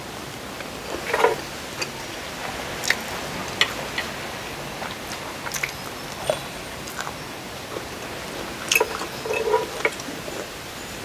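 A person eating close to the microphone: chewing and mouth sounds, with scattered short clicks of a metal spoon and fork against a plate.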